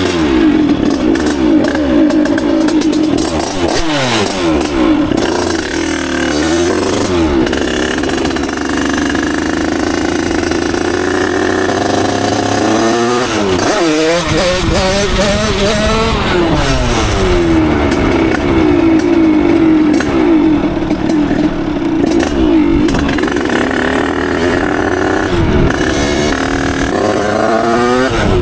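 Derbi Senda two-stroke moped engine, fitted with a Stage6 88cc cylinder kit and a Voca Cross exhaust, heard from the rider's seat on the move. It revs up and down, its pitch climbing and then dropping again several times.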